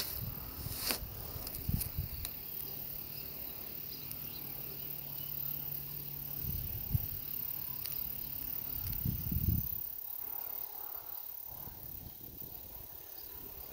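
Quiet outdoor ambience: a steady insect drone, with a faint low hum that runs for several seconds and a few light knocks near the start.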